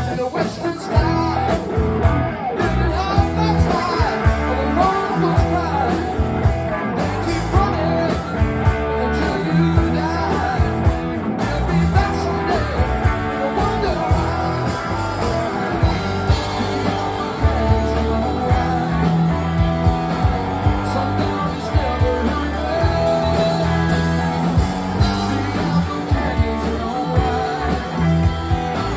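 Live rock band playing: three electric guitars over bass guitar and a drum kit.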